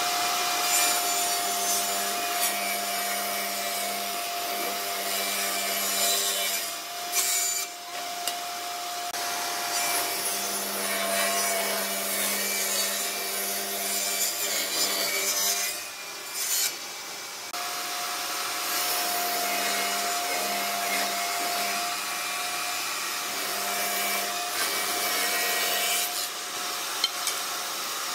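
Benchtop table saw running and ripping a wooden board lengthwise: a steady motor whine under the rasp of the blade cutting through the wood. The sound dips briefly twice.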